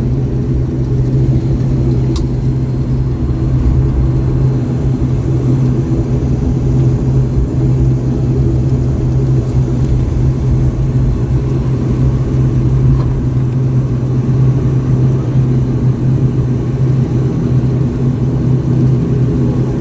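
Twin turboprop engines and propellers of an airliner, heard inside the cabin as a steady low drone with a constant pitch.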